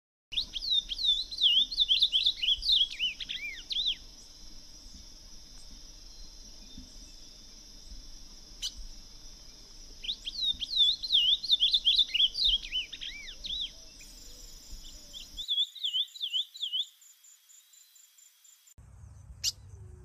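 Ultramarine grosbeak singing: three warbled phrases of quick, sweet notes swooping up and down, the first two about three and a half seconds long and the third a short one. A steady high whine runs under the first two phrases.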